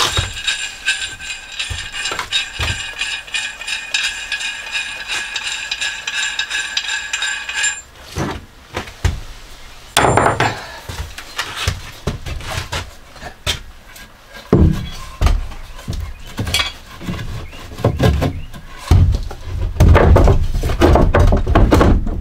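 Steel carrier bars for a wall-hung sink clinking and knocking against each other and against wooden wall framing as they are handled and fitted. For the first eight seconds a steady high ringing sits over the clicks, then stops suddenly; the knocks get heavier near the end.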